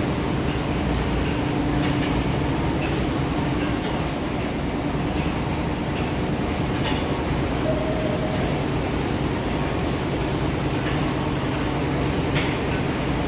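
Old engines and machinery running steadily: a continuous mechanical drone with a low hum and a few faint clicks.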